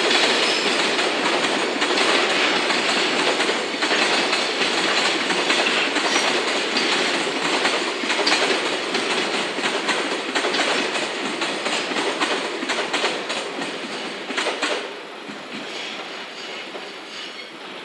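Freight train of container flatcars passing slowly, wheels clicking over the rail joints with a steady rolling rumble. About fifteen seconds in the last wagon passes and the sound drops away to a fainter, fading rumble.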